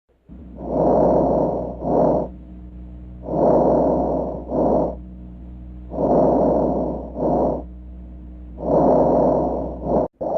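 Recorded lung sounds: four breathing cycles, each a longer breath sound followed by a shorter one, about every two and a half seconds, over a steady low hum.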